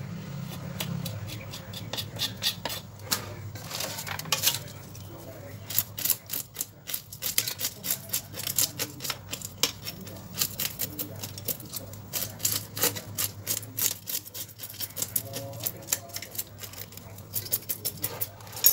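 A knife scraping the scales off a small Nile tilapia on a wooden chopping block: a rapid run of short, crisp scrapes, several a second, coming thicker after the first few seconds.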